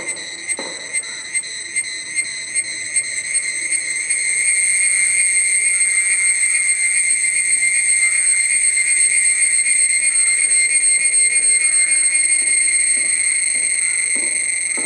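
Cicadas singing: a high, pulsing buzz of about two or three pulses a second that runs together into a continuous loud drone about four seconds in, easing off slightly near the end.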